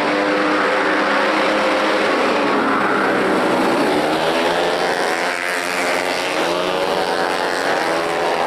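Several 115 cc stock automatic scooters' single-cylinder four-stroke engines revving hard together at racing throttle, their overlapping pitches rising and falling as the riders accelerate and ease off.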